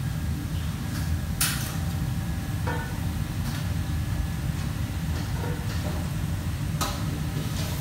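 Busy commercial kitchen: a steady low machine rumble with a few sharp clinks and clatters of metal pans, bowls and trays being handled, the loudest about a second and a half in and another near the end.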